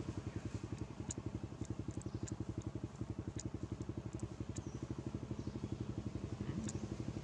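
A small engine idling steadily with a fast, even pulse, and a few faint sharp ticks over it.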